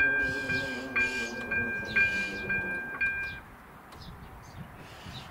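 Level-crossing warning bell ringing about twice a second, then cutting off about three and a half seconds in, once the barriers are down. Under it, a low hum falling slowly in pitch is the barrier drives lowering the booms. Faint bird chirps follow.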